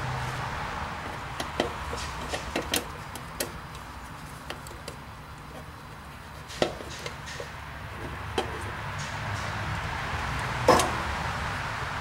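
Scattered clicks and knocks of a gloved hand working among the wires and parts inside an air-conditioner condensing unit's control panel, with the power shut off. The loudest knock comes near the end.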